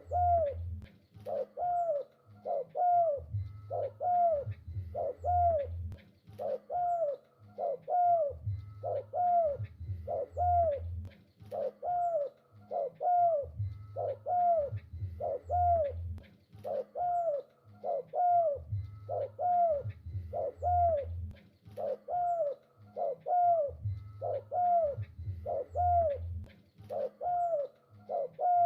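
Spotted dove cooing over and over: a steady run of short, arched coos grouped into repeated rhythmic phrases.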